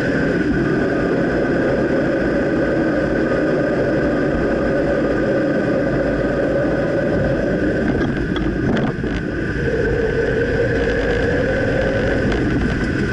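A 2009 Dodge Ram pickup running, with steady engine and road noise and a couple of brief knocks about eight to nine seconds in.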